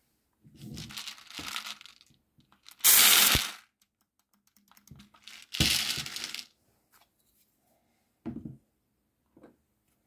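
Airsoft BBs pouring out of a mid-cap magazine held open by an unloader tool, in several bursts of rattling; the loudest come about three seconds and six seconds in.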